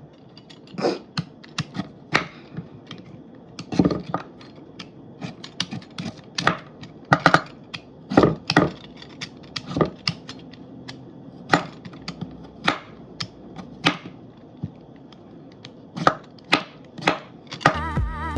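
Irregular knocks and clicks of a knife and potatoes on a cutting board as potatoes are prepared for cutting, uneven and unhurried rather than a steady chopping rhythm.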